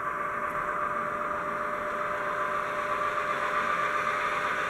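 Model railway train running on the layout: a steady hum of the locomotive's small electric motor with the wheels rolling on the track, even throughout.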